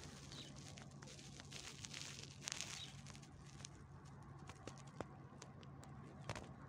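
Faint outdoor ambience: a low steady hum with scattered light clicks and taps and a soft rush of noise about two and a half seconds in.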